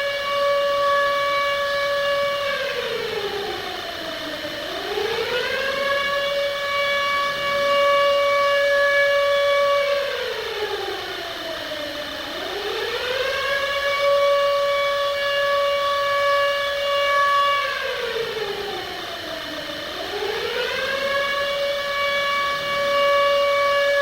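Civil defence siren sounding an attack warning in a slow wail: its pitch holds high for a few seconds, then glides down and back up, sinking low three times about seven to eight seconds apart.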